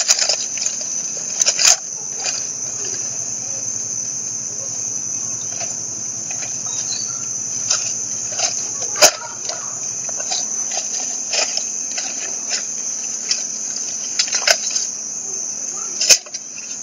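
Steady, high-pitched insect chorus, with scattered sharp clicks and knocks, the loudest about nine seconds in.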